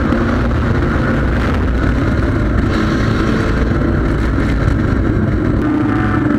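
Front-wheel-drive sport compact race car's engine running at racing speed, heard onboard the car over heavy wind and road rumble. Near the end the engine settles to a steady pitch.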